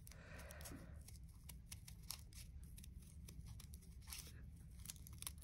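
Fairly large scissors making faint, irregular snips through thick folded paper.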